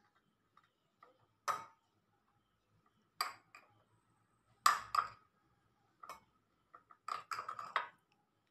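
A spoon and glass bowls clinking in a handful of sharp, irregular taps as banana pieces are added to a glass bowl of chopped papaya, with several taps close together near the end.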